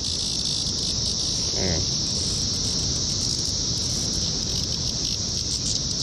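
Cicadas singing in a steady, high-pitched, unbroken chorus.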